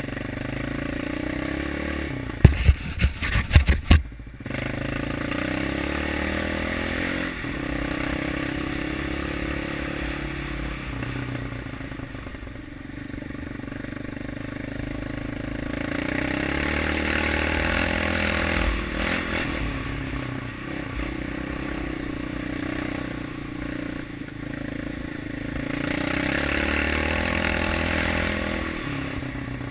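Yamaha Raptor 700 quad's single-cylinder engine running on a dirt track, its note rising and falling with the throttle. A quick cluster of sharp knocks and clatter comes about two to four seconds in.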